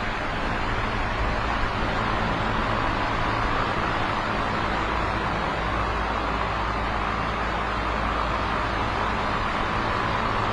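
Electric fan running steadily: a constant whoosh of moving air with a low motor hum underneath.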